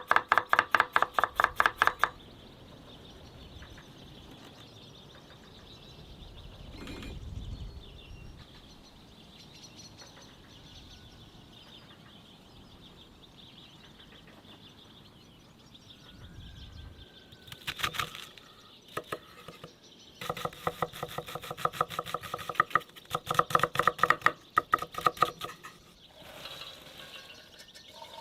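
Rapid, regular knife chopping on a board, about seven strokes a second. It comes in two spells: one that stops about two seconds in, and another from about eighteen seconds in to near the end, with quieter background in between.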